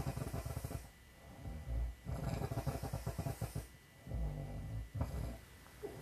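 A woman snoring: rattling snores in three runs with short pauses between breaths.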